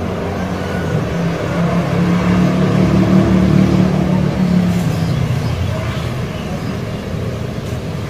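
A motor vehicle's low engine hum that swells to a peak about three seconds in, then fades.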